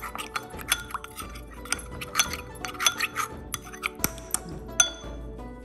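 Metal spoon clinking against a ceramic bowl while stirring a cornflour-and-water slurry, two or three clinks a second, stopping shortly before the end.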